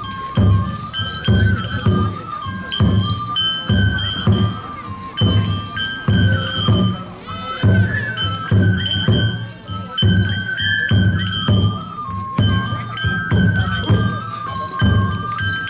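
Japanese shishimai festival music: a bamboo flute plays a stepping melody over a steady beat of taiko drum strokes.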